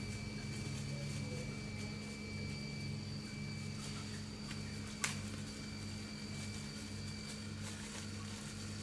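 Steady low background hum with a continuous thin high-pitched whine, and a single sharp click about five seconds in.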